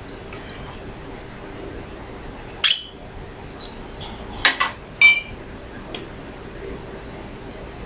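Glass clinking as a brandy bottle and a small drinking glass are handled during a pour. There are a few sharp clinks: one about three seconds in, then two close together a second and a half later, the second of these ringing briefly.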